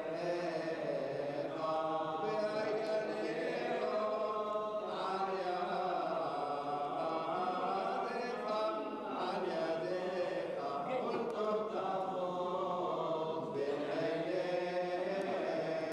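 Unaccompanied Hebrew liturgical chanting: a melodic line sung on without instruments, with a few brief pauses.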